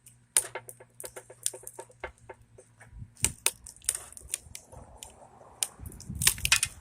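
A hammer tapping on the deflection yoke on the neck of a CRT television tube to knock it loose: a quick run of light taps, then a few harder knocks about three seconds in and again near the end.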